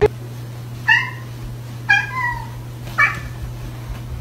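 Domestic cat meowing three times, about a second apart, over a steady low hum.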